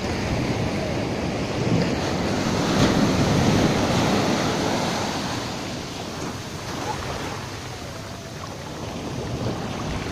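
Sea surf: shallow waves washing in over the sand in a continuous hiss of foam. The wash swells about two seconds in, peaks in the middle, eases off, and builds again near the end.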